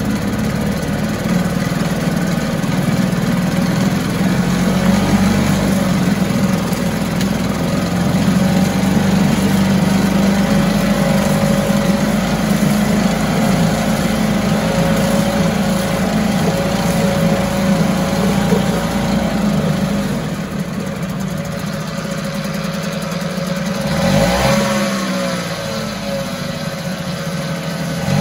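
1974 Mercury 4 hp single-cylinder two-stroke outboard running steadily in a test barrel of water. About three-quarters of the way through, the throttle is briefly opened and closed, giving a quick rise and fall in engine pitch.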